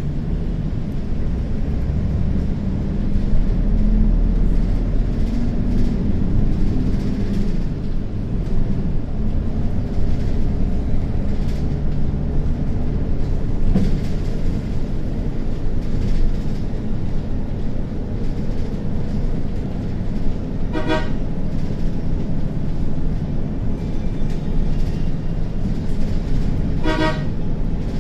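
A Samco City H76 CNG bus's engine runs steadily on the road with a low rumble. A horn sounds twice, briefly, about three-quarters of the way in and again near the end.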